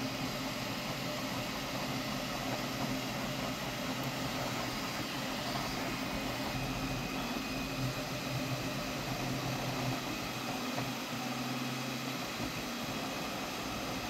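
Flashforge Adventurer 5M Pro 3D printer running a print: a steady fan whir with low stepper-motor tones that shift in pitch every second or so as the print head moves.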